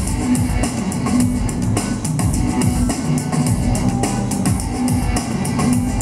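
Backing music with a steady drum-kit beat and guitar.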